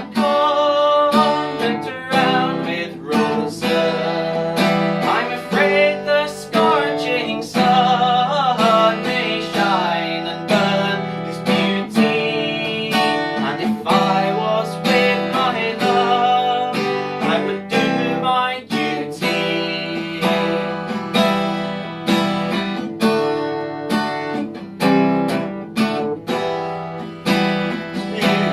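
Acoustic guitar strummed and picked in a steady rhythm, playing a folk song accompaniment.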